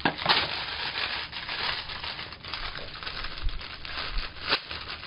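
Clear plastic wrapping crinkling and rustling as it is handled and pulled off a ring light diffuser, with several sharper crackles.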